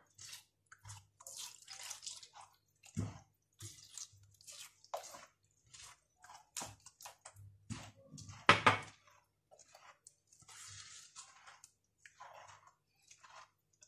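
A hand squishing and stirring a wet sesame-and-anise batter in a clay bowl while milk is poured in from a glass: irregular squelches, drips and splashes, with one louder clack about eight and a half seconds in.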